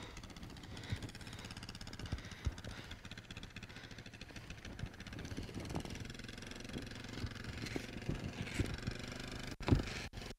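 ATV engine running steadily at low speed while it tows a wheeled heel-roping dummy, with scattered knocks and thuds throughout.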